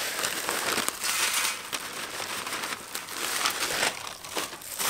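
Plastic packet crinkling and rustling in uneven bursts as dry crumbs are shaken out of it onto a metal tray, with a few sharp clicks near the end.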